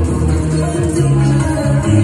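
Salsa music played over a PA loudspeaker, with a strong bass line under the band.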